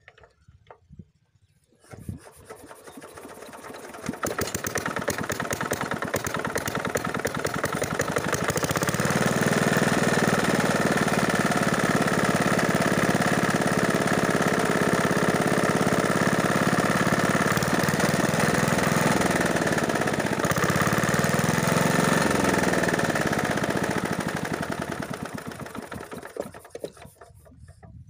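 Small single-cylinder diesel engine on an irrigation water pump, hand-cranked into life. It turns over about two seconds in, catches and runs steadily, dips in speed and picks up again about two-thirds of the way through, then runs down and stops near the end.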